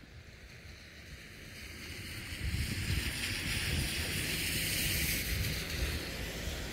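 Wind buffeting the microphone, a fluctuating rumble with a rushing hiss, growing stronger about two seconds in.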